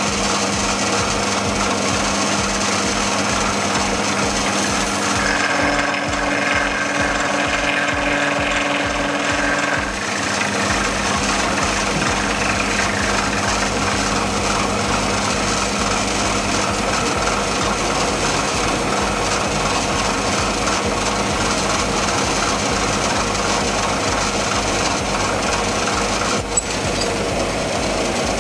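Bench milling-drilling machine running with a steady motor hum and mechanical noise; a higher whine joins for several seconds from about five seconds in, and there is one sharp click near the end.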